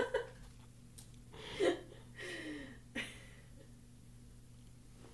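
A person's short breathy laugh, then a soft low voiced sound, with a light knock about three seconds in, over a faint steady room hum.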